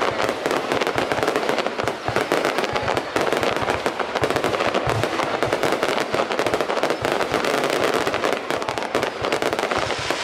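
Fireworks going off in a dense, unbroken barrage of rapid crackles and bangs.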